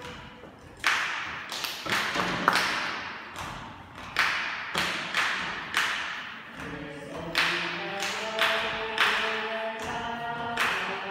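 Vocal group's hand claps and slaps, sharp strikes ringing in the hall in an uneven rhythmic pattern. About six and a half seconds in, several voices join, singing held notes in harmony.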